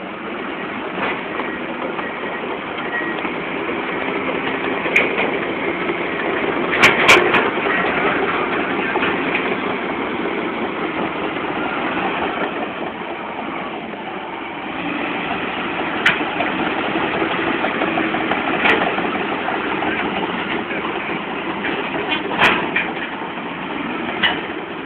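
Diesel engines of a Komatsu PC200 hydraulic excavator and a crawler bulldozer running steadily, with a few sharp knocks.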